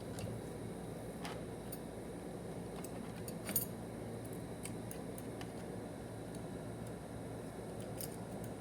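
Scattered light metallic clicks and taps from the parts of a TH400 transmission being handled during reassembly, one sharper click about three and a half seconds in, over a steady hiss.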